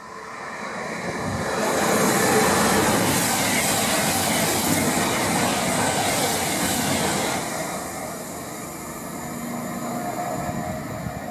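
Voyager diesel multiple unit running fast through a station. Its engine and wheel-on-rail noise swells over the first two seconds, stays loud for about five seconds as it passes, then fades as it draws away.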